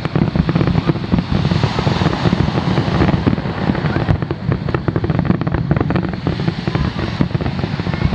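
Aerial firework shells bursting in quick succession, a dense run of bangs and crackling that thins a little near the end.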